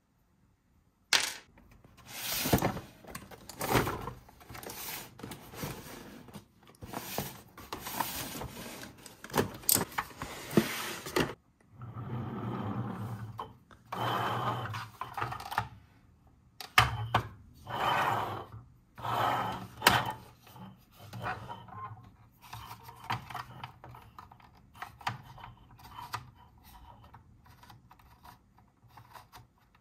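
Close-miked hands handling small hard plastic toys, starting about a second in: irregular taps, clicks and rustles. After a short break about eleven seconds in, a plastic toy bus is turned over and handled, its hard plastic body giving knocks, clicks and rubs.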